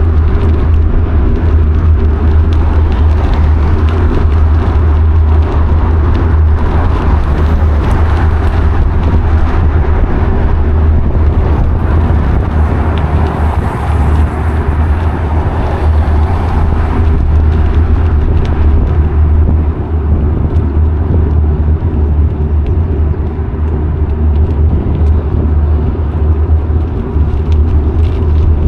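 Steady, loud wind noise on a bike-mounted action camera's microphone, mixed with car traffic on the road lanes alongside. The traffic swells for a few seconds past the middle.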